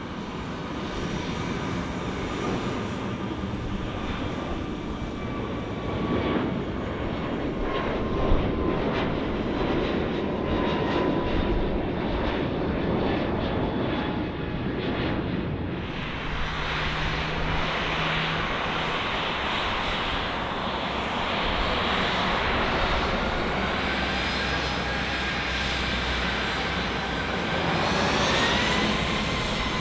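Airliner jet engines: first a departing Airbus narrowbody climbing out, a steady rumble with a slowly falling whine. About halfway through it switches to a Boeing 737-700's CFM56 engines as the plane taxis, with an engine whine that rises in pitch near the end.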